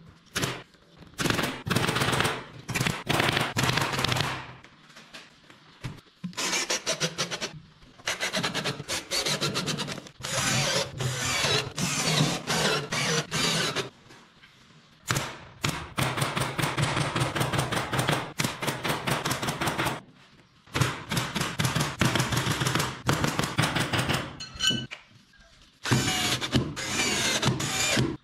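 Pneumatic upholstery staple gun firing in rapid runs of sharp clicks, driving staple after staple through fabric into a wooden frame, with short pauses between the runs.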